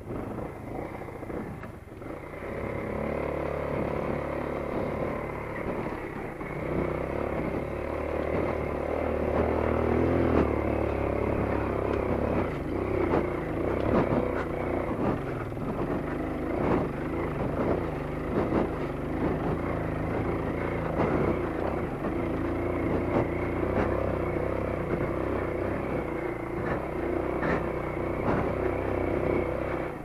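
Motorcycle engine pulling the bike up a steep, rutted dirt trail, its revs rising and falling with the throttle and loudest partway through the climb. Frequent knocks and rattles from the bike jolting over the rough ground.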